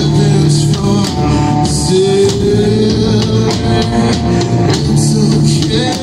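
Live doom metal band playing loud: electric guitar and bass guitar over a drum kit, with regular drum and cymbal hits and a held, slightly rising guitar note about two seconds in.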